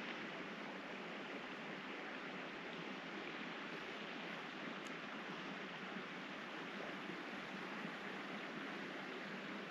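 Steady rushing outdoor background noise with no otter calls, and one faint, short, high tick about five seconds in.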